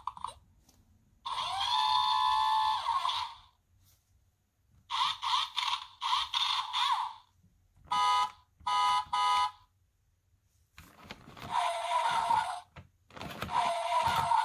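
Short electronic car sound effects from a children's sound book's toy steering-wheel dashboard, played through its small speaker in several separate bursts. About eight seconds in, three short toy-horn honks sound as the wheel's centre button is pressed.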